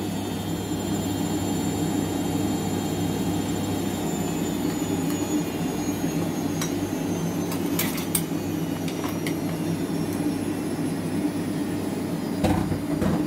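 Electric hand mixer running steadily with a low hum and a faint high whine, beating the cake batter, with short clinks against the bowl about eight seconds in and near the end.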